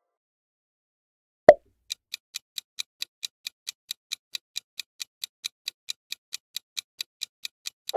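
A single sharp click about a second and a half in, then a quiz countdown timer's clock-tick sound effect, ticking evenly at about four ticks a second.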